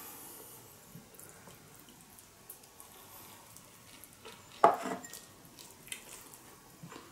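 Faint small clicks of handling and eating, then, a little over halfway through, a single loud clunk as a glass bowl is set down on a wooden serving board.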